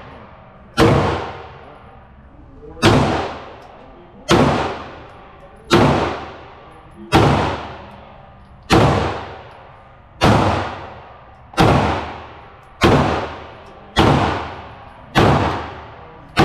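Semi-automatic pistol firing single shots at a steady pace, about a dozen in all, one every one to two seconds. Each shot rings on with a long echo off the concrete walls of the indoor range.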